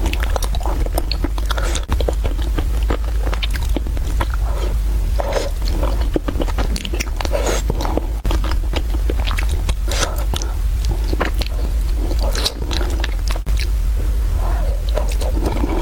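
Close-miked chewing and biting of spicy fried rice noodles, a dense run of short wet mouth clicks over a steady low hum.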